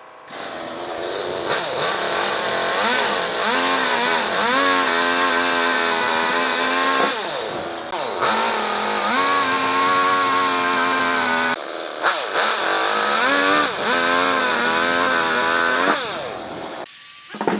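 Chainsaw running at high revs, cutting into raw wood, its pitch dipping and climbing again as it is throttled. It runs in three long stretches with brief pauses about 7 and 11 seconds in, and stops near the end.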